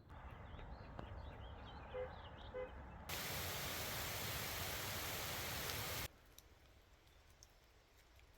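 Rain falling: a moderate hiss, then a much louder, even downpour hiss for about three seconds that starts and stops abruptly, then quieter rain with scattered drop ticks.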